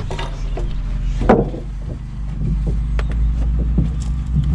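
An engine running steadily at a low, even pitch, with several sharp knocks of formwork being handled and fitted on top, the loudest about a second in.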